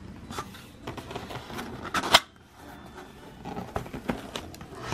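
Cardboard shipping box being torn open by hand along its sealing strip: a run of irregular cardboard rips and clicks, the loudest a sharp rip about two seconds in.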